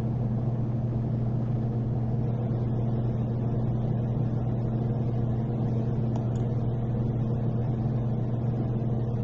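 Steady low hum with a faint hiss underneath, constant throughout.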